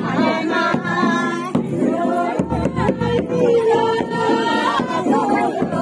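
A group of women singing a Kinnauri folk song together for the Kayang line dance, with long held notes and a few sharp beats.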